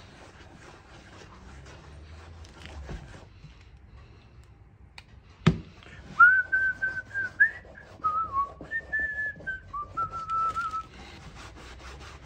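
A person whistling a short tune of a few held notes, starting about six seconds in, over the faint rubbing of hands working cream into a leather boot. There is a single sharp tap just before the whistling.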